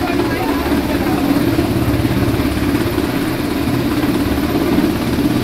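US Coast Guard MH-60 Jayhawk helicopter hovering close overhead: a loud, steady drone of rotor blades and turbine engines with an even low throb.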